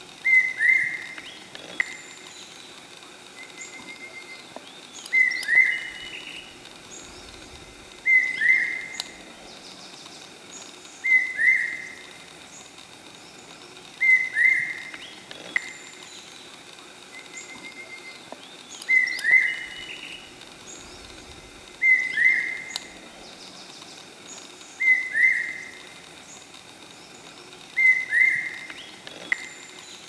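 Hawk-cuckoo calling: a loud two-note call, each note slurring slightly down, repeated about every three seconds. Faint chirps of other birds sound behind it.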